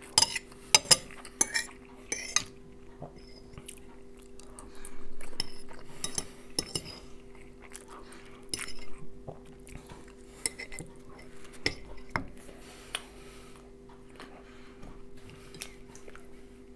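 A metal fork clinking and scraping on a ceramic plate and in a frying pan while a person eats, with irregular sharp clicks and quieter chewing between them. A steady low hum runs underneath.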